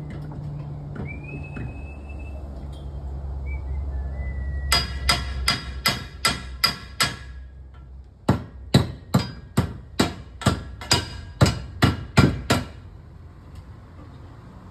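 A hammer driving nails into the wooden formwork: a run of about eight quick, ringing strikes, a short pause, then about a dozen more, two to three a second.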